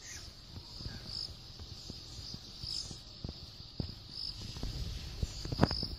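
Insects calling from the bush: a steady high trill with a brighter chirp about every second and a half, and a few soft knocks.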